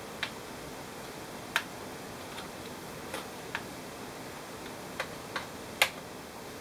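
Irregular sharp clicks of small screws and a small screwdriver tapping against the plastic and metal of an HP G60 laptop's chassis during reassembly, about eight in all, the loudest near the end, over a steady hiss.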